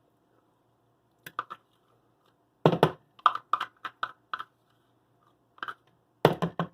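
A series of sharp taps and knocks from a kitchen utensil against a container while ingredients are spooned out: two taps, then a quick run of about a dozen, and a louder cluster near the end.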